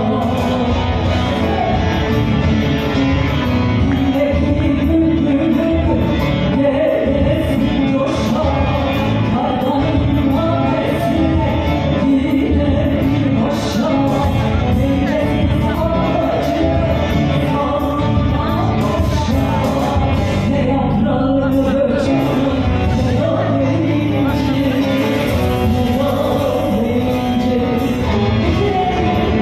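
Live music played through a PA in a large hall: a woman singing, accompanied by an amplified bağlama (long-necked saz) over a steady bass.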